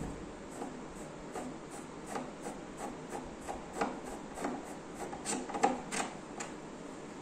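Wooden furniture leg being screwed by hand into its threaded mounting plate on a flat-pack TV unit: a string of short rubbing squeaks as it is turned, about two or three a second, louder in the later part.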